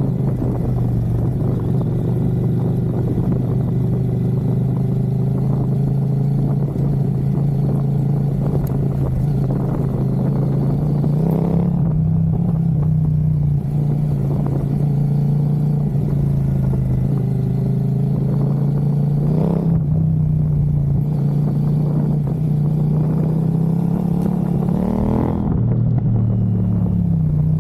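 CFMoto 800MT's parallel-twin engine running through a Black Widow slip-on exhaust, ridden at low, fairly steady revs. The revs rise and drop back briefly three times, about 11, 19 and 25 seconds in.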